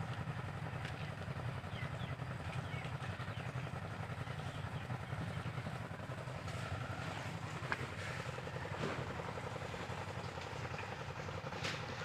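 An engine running steadily at an even speed, with a couple of faint clicks over it.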